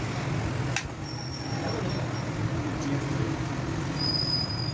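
Workshop background noise: a steady low rumble of vehicle traffic and engines, with a single sharp click a little under a second in.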